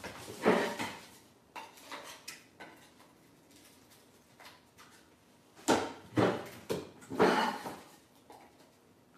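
Knocks and clatter of hard workshop items being rummaged through and handled: a loud clatter about half a second in, a few lighter knocks, then a louder run of clattering near the end.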